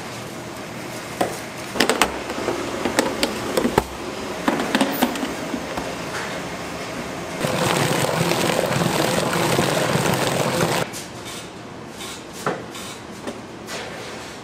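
Cake-factory production noise: scattered clatters and knocks of equipment and trays, with a steady machine rush for about three seconds in the middle that cuts off suddenly.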